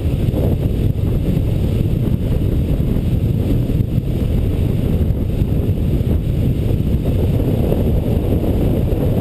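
Wind from a hang glider's airspeed rushing over a wing-mounted camera's microphone: a loud, steady low rumble.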